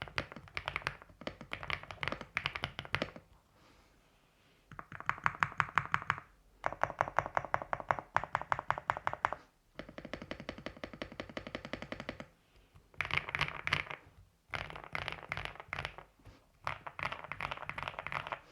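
Fast typing on an AULA F75 mechanical keyboard with MMD Vivian 28 g linear switches: rapid runs of keystrokes in bursts of a few seconds, separated by short pauses, the longest one about three seconds in.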